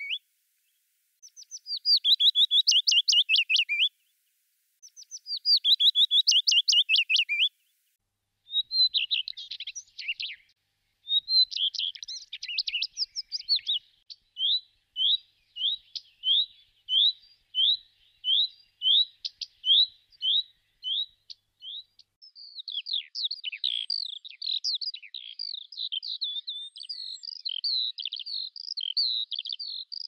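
Willow warbler singing: three soft phrases, each a run of notes that falls in pitch, with short pauses between. After that a common redstart sings, with short varied phrases, a run of evenly repeated notes and faster twittering near the end.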